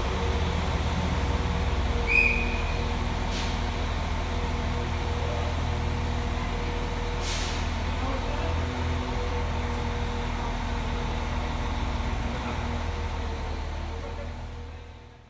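Class 196 diesel multiple unit's MTU 6H 1800 inline-six diesel engines running steadily, with a short high chirp about two seconds in and a brief hiss about seven seconds in. The sound fades out near the end.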